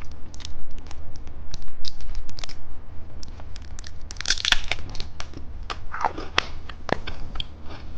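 Plastic candy wrappers being handled and torn open: crinkling and tearing with many scattered clicks, and a louder burst of crinkling about four and a half seconds in.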